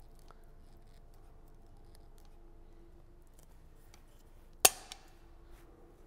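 A sharp metallic click from a cartridge dispensing gun being handled, about four and a half seconds in, with a fainter second click just after. The rest is a faint steady hum.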